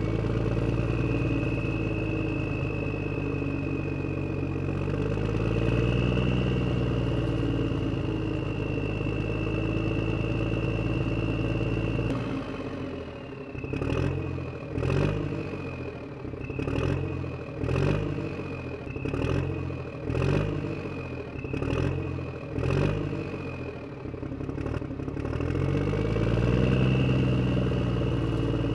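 Small electric gear motor of a homemade toy tractor whirring as it pulls a plough through sand, with a high motor whine on top. For about ten seconds in the middle the sound pulses with a clatter roughly once a second, then settles back to a steady whir.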